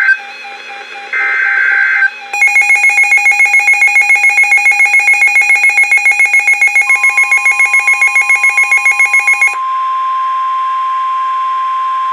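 Emergency Alert System broadcast on NOAA Weather Radio: the end of the SAME digital header, short shrill data bursts, then a rapidly pulsing electronic alarm at about six beeps a second for about seven seconds. Partway through, the steady 1050 Hz weather-radio warning tone starts and carries on alone after the pulsing stops, signalling a warning.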